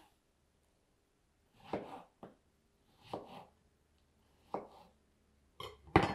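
Kitchen knife slicing strawberries on a cutting board: a short cut and tap of the blade on the board about every second, about six in all. The last, near the end, is a sharper, louder knock.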